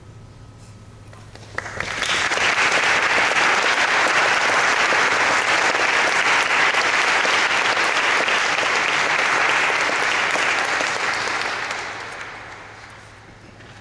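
Audience applauding: the clapping starts suddenly about a second and a half in, holds steady, and fades out near the end.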